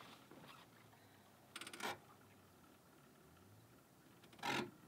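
A quiet sailing yacht under sail, with a short run of rattling clicks from the deck gear about a second and a half in and a brief swish near the end.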